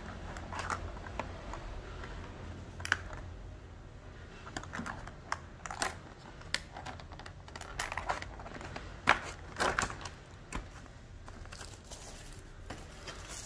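Plastic keycaps clicking and tapping lightly as they and their plastic tray are handled: scattered, irregular small clicks.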